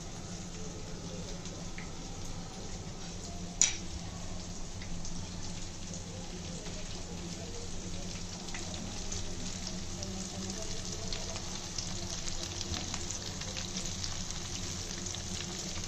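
Marinated barramundi pieces shallow-frying in oil in a pan: steady sizzling with fine crackles, and a wooden spatula moving and turning the pieces. One sharp clack about three and a half seconds in, and a low steady hum underneath.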